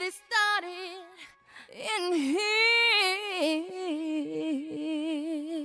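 A high solo voice singing long, held notes with a wavering vibrato, with no instruments behind it.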